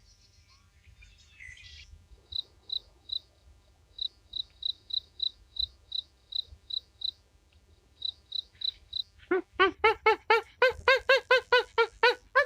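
Animal calls: a regular run of short, high chirps, about three a second, then from about nine seconds in a fast series of loud, pitched squeaking calls, each rising and falling.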